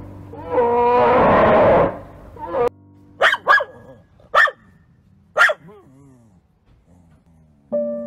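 A bear cub bawls in one long, drawn-out call. Then a dog barks four times, two close together and two more spaced about a second apart.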